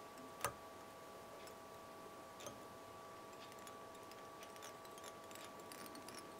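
Faint scattered clicks and ticks of hand work at a fly-tying vise as the hackle is tied down with thread, with one sharper click about half a second in, over a faint steady hum.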